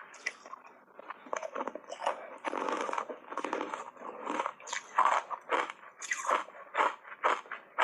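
Hard ice bars coated in matcha powder being bitten and chewed close to the microphone. A quick run of sharp, crunchy bites comes with a longer stretch of grinding chewing about two and a half seconds in.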